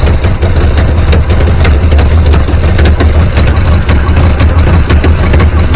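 Pontiac Firebird engine idling steadily at under 700 RPM while its ignition timing is set. A regular light ticking runs over the low hum.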